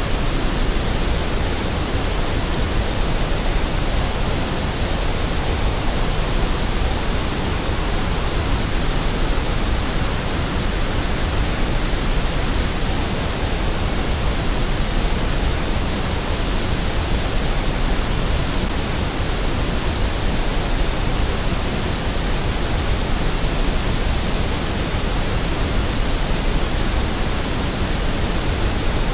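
Steady white noise: an even, unbroken hiss across the whole range, with no change in level or tone.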